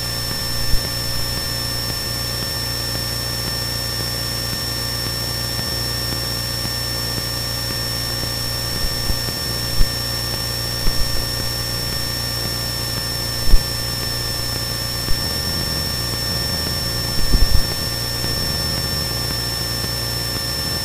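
Cessna 172N's four-cylinder Lycoming O-320 engine and propeller droning steadily in cruise, heard inside the cabin, with a few brief low thumps scattered through it.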